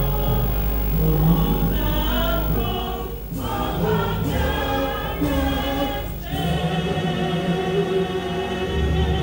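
A choir sings an anthem with instrumental accompaniment, in held phrases with short breaks about three and six seconds in.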